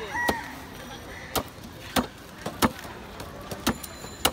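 Fish being chopped and cut: a series of sharp, irregular chopping knocks, about seven in four seconds, over a steady market background.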